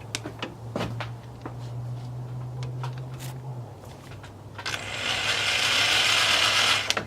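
Handheld drill boring a hole through a carbon fiber hood: a few light clicks and taps as the drill is set in place, then about two and a half seconds of steady grinding as the bit cuts through, starting just under five seconds in.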